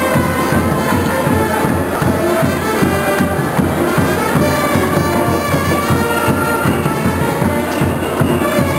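Brass band music playing with a steady beat.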